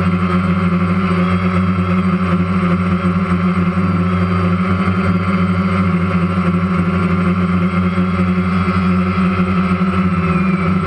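Boat motor running at a steady speed: a constant low hum with a higher whine above it that does not change.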